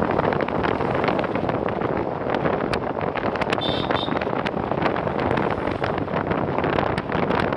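Steady rush of wind on the microphone from a moving vehicle in heavy rain, with many scattered sharp ticks. A brief high chirp comes about halfway through.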